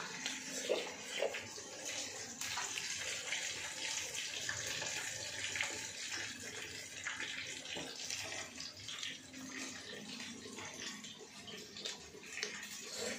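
Hot oil sizzling steadily in a frying pan, a continuous hiss with small crackles throughout.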